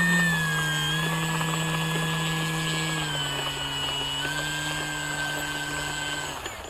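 Electric motor and propeller of a Carbon-Z Cessna 150 radio-controlled plane running at low throttle with a steady whine. The pitch steps down twice as the throttle is eased back, and the motor cuts off shortly before the end.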